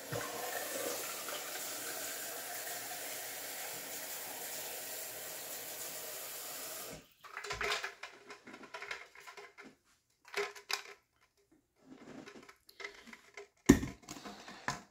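Water running steadily into a drinking container for about seven seconds, then stopping abruptly. Scattered clinks and knocks of kitchen things being handled follow, with one sharp knock near the end.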